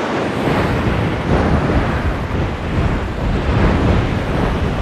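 Sound-designed rush built from recorded fabric swishes, layered into a dense, surging whoosh with a heavy low rumble. It stands in for descending through thick clouds.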